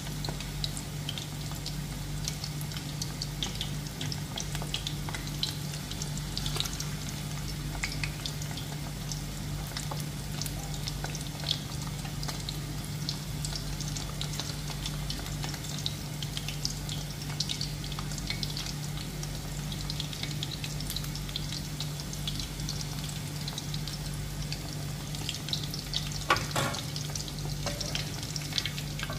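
Mutton goli kabab balls deep-frying in hot oil in a kadhai: a steady sizzle with a fine crackle of popping bubbles. Near the end a slotted spoon stirs them, with a few louder clicks against the pan.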